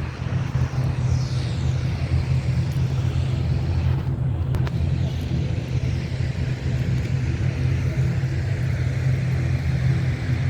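Steady low rumble of a motor vehicle driving.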